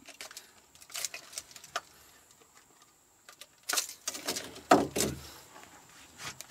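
Metal clicks and clinks of pliers and treble hooks as a lure is worked out of a big fish's mouth. The clicks are sharp and separate, then two heavier knocks come about four and five seconds in.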